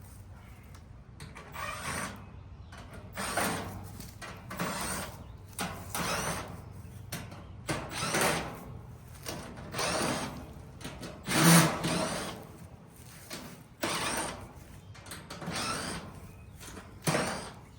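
Cordless drill/driver running in short bursts, a second or two apart, backing out the sheet-metal screws that hold an air-conditioner condenser's top panel.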